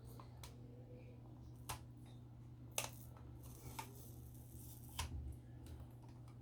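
Faint, scattered clicks and scrapes of metal tweezers against the plastic underside of a computer mouse as the old glide-pad stickers are pried off, about five in all, over a steady low hum.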